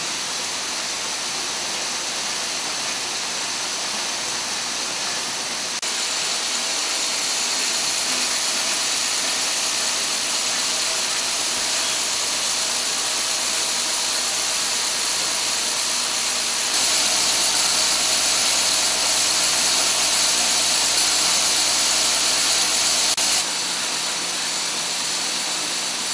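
Automatic syringe assembly machine running: a steady hissing mechanical whir with a few faint steady hums under it. It gets louder twice and drops back shortly before the end.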